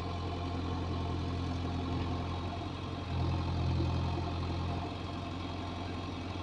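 JCB 3DX backhoe loader's diesel engine running steadily at a low idle hum. Around the middle it rises in load and gets louder for about two seconds, then settles back.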